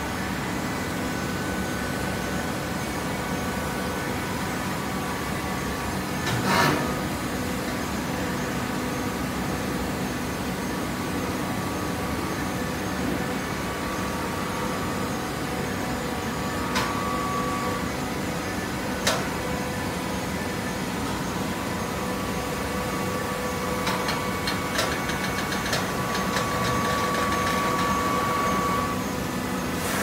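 Horizontal hydraulic baler's power unit running with a steady hum, with one loud clank, two lighter knocks later, and a stretch of quick rattling with a steady whine near the end.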